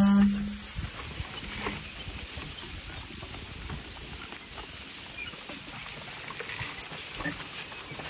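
Oxen team hauling a wooden ox cart over dry grass: soft hoof treads and rustling with scattered light knocks. The cart's droning axle song cuts off just at the start.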